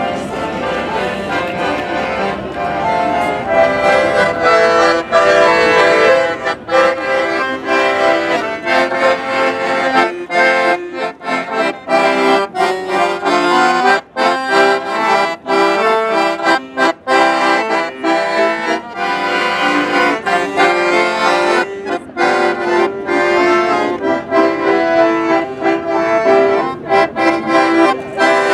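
A piano accordion played solo: a tune of quickly changing notes with many brief breaks between them.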